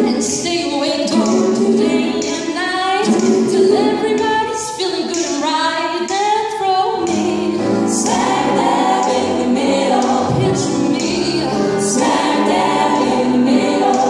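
Women's vocal group singing in several-part harmony into handheld microphones, amplified through a PA. A lower part joins about eight seconds in.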